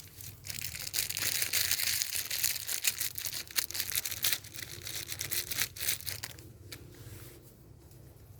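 Dense crackling and crunching rustle, like dry leaves or twigs being crushed and torn. It builds about half a second in, is loudest over the next few seconds, and fades out near the end.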